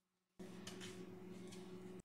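Dead silence, then from about half a second in a faint, steady electrical hum with a light hiss: the background noise of the voice-over recording.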